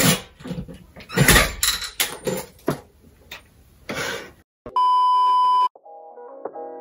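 Short, uneven bursts from a cordless drill working a screw into a curtain-rod bracket, then a steady bleep tone of about a second edited in where the screw is dropped, and quiet guitar music starting near the end.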